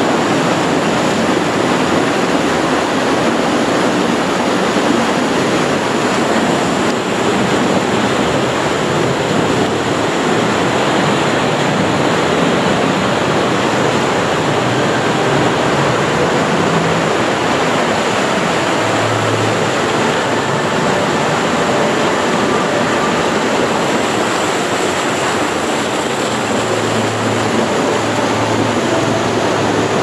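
Fast-flowing water of a wild-river water slide rushing and churning down the channel, heard close to the water's surface as a loud, steady rush.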